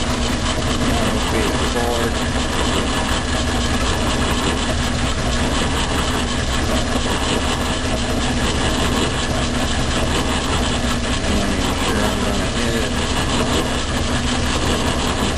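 Logan metal lathe running with a fly cutter in the chuck, milling across an aluminum block clamped in a vise on the cross slide: a steady machine hum and cutting noise.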